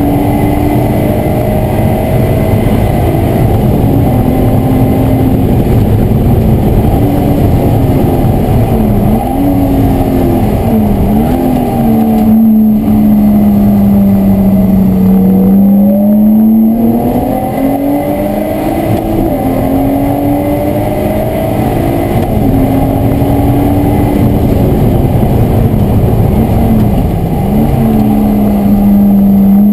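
Lotus Exige S's supercharged 3.5-litre V6, heard from inside the cabin under hard driving: the engine note climbs and falls repeatedly as it pulls through the gears, with quick dips and rises in pitch at gear changes about ten seconds in and again near the end. Heavy road and wind noise runs underneath.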